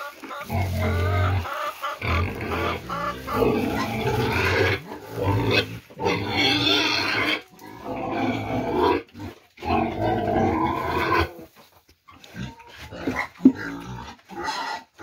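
Pigs squealing at feeding time: a string of loud, drawn-out pitched calls, each a second or two long, coming one after another, growing softer and more broken near the end as the feed is put down.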